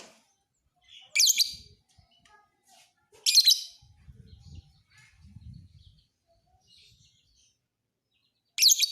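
Lovebird chirping in three short, loud, shrill bursts (about a second in, just after three seconds, and near the end), with faint twittering between them.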